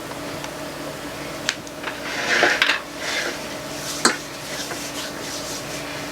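Cutlery and dishes at a meal: sharp clinks of utensils on plates about one and a half and four seconds in, with a scrape of a fork or knife across a plate around two to three seconds in.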